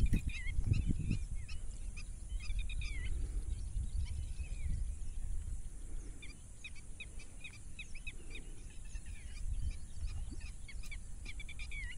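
Birds chirping and calling: many short chirps and quick falling notes throughout, over a low rumble that is heaviest in the first second.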